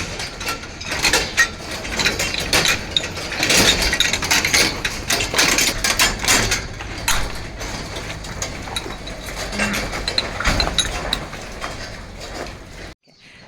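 Row of barn headlock stanchions released by a lever: many irregular metal clanks and rattles of the bars as the cows are let go. The sound cuts off suddenly near the end.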